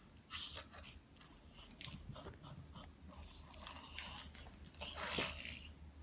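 Crinkling and crunching as a toddler handles and mouths a small plastic packet: a run of short, crackly noises, with a louder burst about five seconds in.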